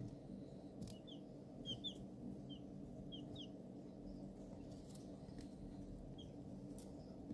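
Young chicks peeping: several short, high, slightly falling peeps, most of them in the first three and a half seconds and one more near the end, over a steady low hum.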